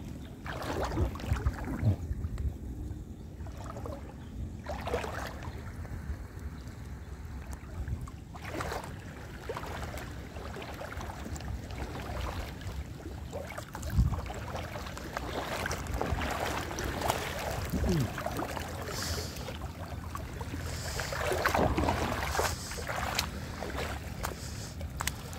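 Wind buffeting the microphone over shallow seawater lapping on a reef flat, with scattered small splashes and knocks.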